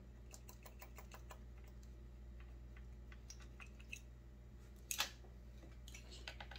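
Faint, scattered light ticks and scrapes of a small drill bit worked by hand in a McCulloch PM 700 chainsaw's carbon-clogged decompression port, with one louder click about five seconds in.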